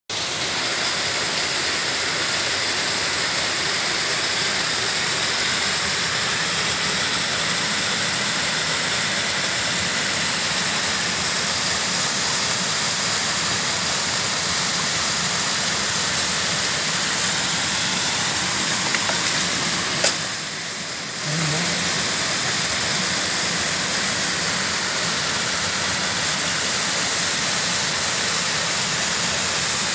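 Steady rushing of a mountain creek's water, an even hiss, with a short click and a brief dip in level about twenty seconds in.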